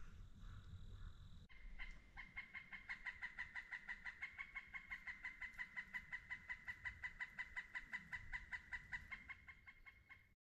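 An animal calling: an even, rapid series of short chirps at one pitch, about six a second, starting about a second and a half in and running for about nine seconds before cutting off.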